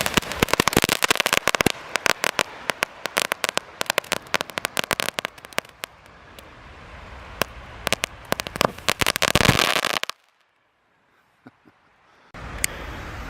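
Firework mine going off: a dense, rapid crackling of many sharp pops that thins over several seconds to scattered crackles, with a hissing surge near ten seconds before the sound cuts off. Wind noise follows in the last second or so.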